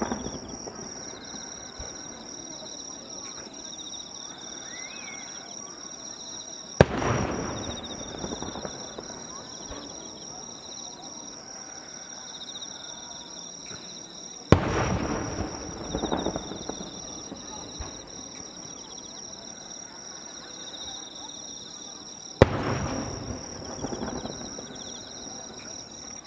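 Aerial firework shells bursting: three sharp bangs about eight seconds apart, each followed by a rumbling, crackling tail that fades over a couple of seconds.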